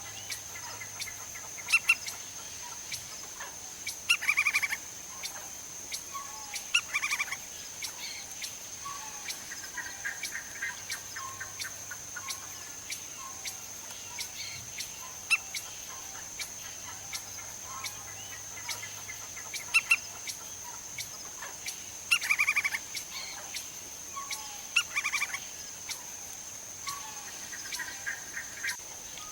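Lineated woodpecker calling: short, rapid rattling call series of about half a second each, repeated every few seconds, with sharp single knocks scattered between them.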